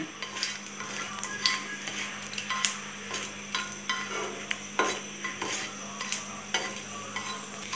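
Dried red chillies frying in hot oil in a kadai with a faint sizzle, while a spatula stirs them, scraping and tapping against the pan every so often.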